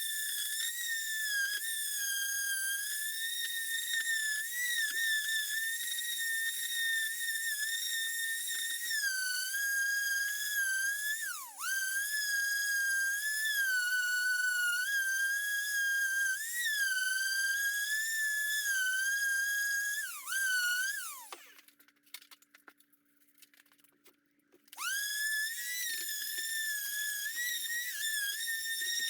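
Electric woodworking sander with 120-grit paper sanding down body filler: a high steady motor whine whose pitch sags each time it is pressed into the work. About two-thirds in it winds down and stops, then a few seconds later spins back up and runs again.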